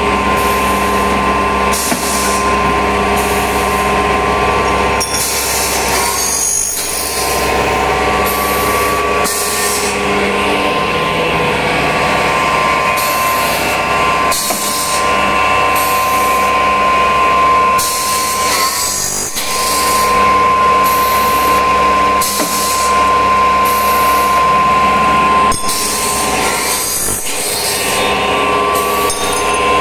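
Automated CNC aluminium profile punching and cutting machine running: a steady high whine, with short bursts of hiss and clatter every second or two as it works.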